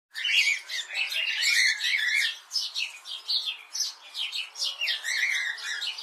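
A flock of budgerigars chattering: many overlapping high chirps, warbles and squawks at once, dense and continuous.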